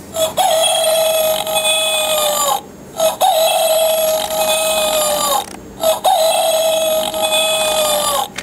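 Hen-shaped novelty alarm clock's electronic alarm sounding: a long steady tone that droops slightly in pitch at its end, repeated about every three seconds with short breaks between. The alarm keeps going until all five eggs are put back into the hen.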